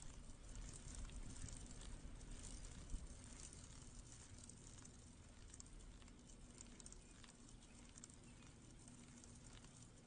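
Faint rolling noise of a Hase Trigo recumbent trike on asphalt: a low rumble with scattered small clicks and rattles, and one sharper knock about three seconds in.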